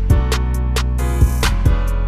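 Music with a steady beat: a deep kick drum hitting about twice a second over sustained bass and melody notes, with crisp high ticks on top.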